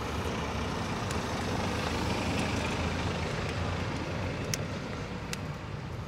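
Steady rumble of road traffic going by, swelling a little about two seconds in and easing off, with a few faint clicks of plastic wiring-harness connectors being handled near the end.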